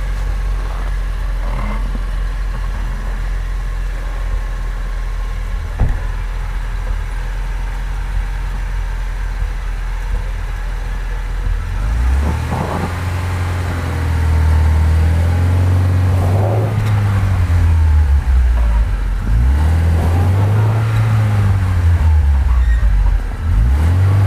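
An off-road 4x4's engine idling steadily for about twelve seconds, then revved up and down in several long swells, working the vehicle on a snowy slope.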